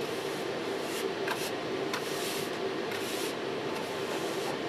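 Push broom bristles scraping across a concrete floor in scratchy swishes about once a second, over a steady hum with a held tone.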